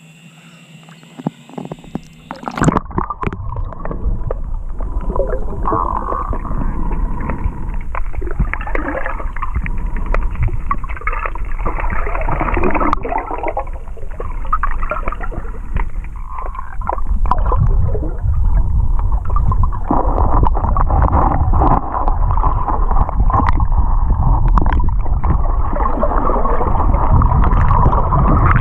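River water heard from below the surface: a muffled, steady low rumble and gurgle with scattered clicks and knocks. It starts about two and a half seconds in, after a quieter moment with a few sharp clicks.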